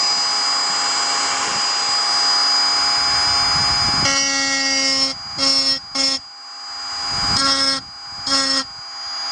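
Handheld rotary engraving tool with a small ball burr, running with a steady high whine while it engraves a copper disc. From about four seconds in the sound breaks into five short, louder bursts with dips between them.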